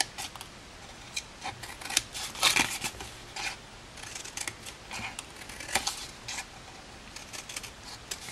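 Scissors snipping through cardstock in a run of short, separate cuts, cutting up the score lines to make flaps.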